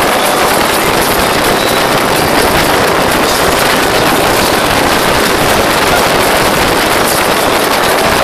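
Motorboat running at speed: a steady, loud rush of wind on the microphone with engine and water noise blended in, no breaks or changes.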